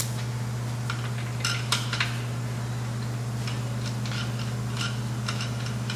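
Light metal clicks and clinks as bolts are handled and the gearbox assembly is fitted back onto a steel transplanter frame. The clicks are scattered, several in quick succession, over a steady low hum.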